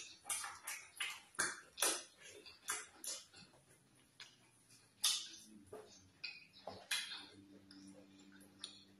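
Eating by hand: wet chewing and lip smacking with sticky fufu squishing as it is pinched off, an irregular run of sharp mouth clicks and smacks, two or three a second.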